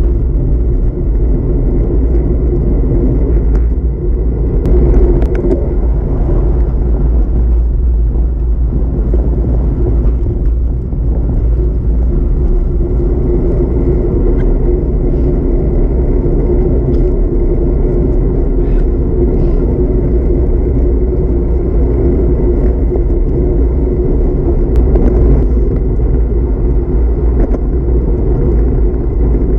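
Steady wind rush and rumble on the microphone of a handlebar-mounted camera on a moving bicycle, mixed with tyre noise on rough asphalt. A few faint clicks come from bumps in the road, and the rush swells briefly about five seconds in and again near the end.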